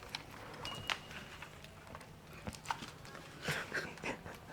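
Quiet indoor room tone with faint scattered clicks and rustling, and a short high beep about a second in.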